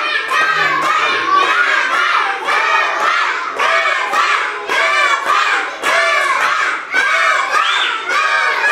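A crowd of young children shouting and cheering together, many high voices overlapping without a break.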